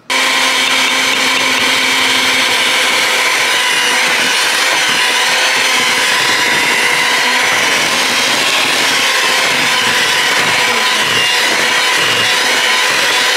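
Hamilton Beach electric hand mixer switched on and running steadily at a constant speed, its beaters whirring through thick cheesecake batter as an egg is beaten in.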